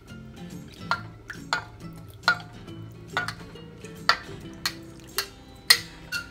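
A metal ladle knocking and scraping against a steel wok during stirring, about ten short clinks with a brief ring at uneven intervals of half a second to a second. Soft background music plays underneath.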